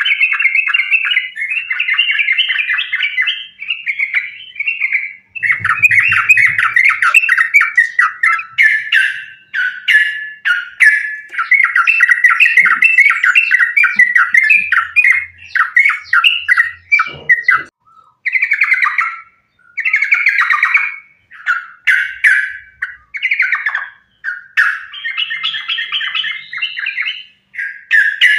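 Yellow-vented bulbul (trucukan) singing in a fast, almost unbroken run of chattering notes: the aggressive, continuous 'tarung sambung ropel' song that keepers play as a lure to set other bulbuls singing. In the second half the run breaks into shorter phrases with brief pauses.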